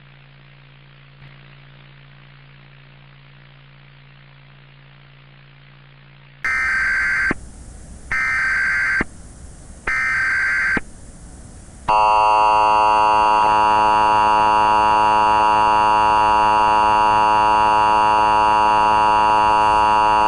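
Mock Emergency Alert System signal: a faint steady low hum, then three short screeching bursts of SAME header data tones, then a loud, steady, many-pitched attention tone held for about eight seconds.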